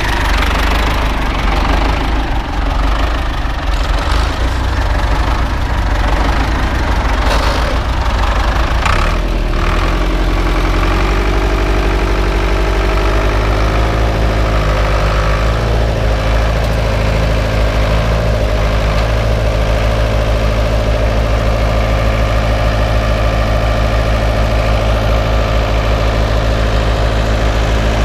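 Tractor diesel engine running, with a few clanks in the first third. Then it settles into a steady note, rising a little in pitch about halfway through and holding there.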